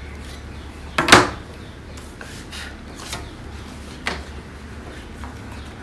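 Hands handling cloth and a wooden ruler on a cutting table. A sharp knock about a second in and a lighter one about four seconds in, with faint rustling and small taps as the cloth is smoothed flat.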